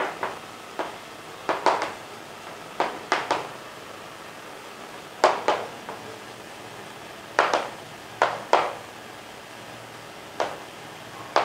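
Chalk tapping and scraping on a chalkboard as words are written, in short clusters of strokes with pauses between them.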